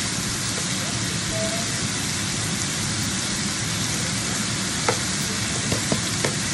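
Pork ribs, onions and tomatoes sizzling steadily in a frying pan, with a few light clicks in the second half.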